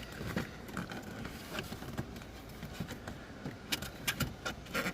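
Plastic steering column shroud being handled and fitted by hand: scattered light clicks and knocks of plastic parts, coming closer together near the end.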